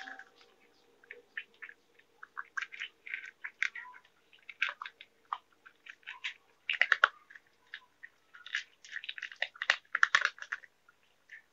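Cats chewing dry kibble: quick, irregular crunches in clusters, with the loudest bunches about two-thirds of the way through and again near the end before they stop.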